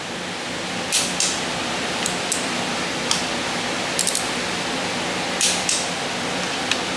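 Click-type torque wrench and socket working the cylinder head bolts of a small-block Chevy 350 on the final 65 ft-lb pass, giving short metallic clicks every second or so over a steady hiss.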